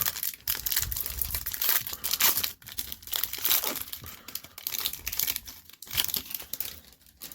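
Baseball card pack wrapper being torn open and crinkled by hand, a run of dense crackling and rustling that thins out near the end.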